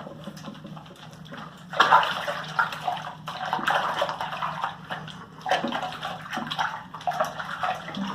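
Water splashing and trickling as a puppy is washed in a sink, irregular and louder from about two seconds in.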